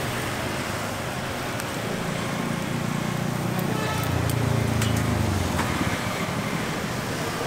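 Street traffic noise, with a vehicle passing close by: its low rumble swells about two seconds in and fades after about five seconds, over a steady hiss.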